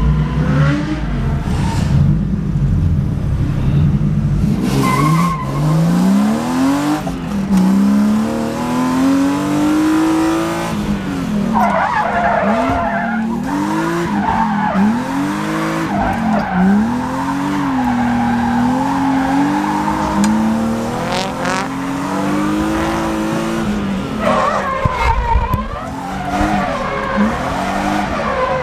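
A BMW E36 M3's S52 inline-six, heard from inside the cabin, revving up and falling back again and again as the car is drifted, with tyres squealing and skidding.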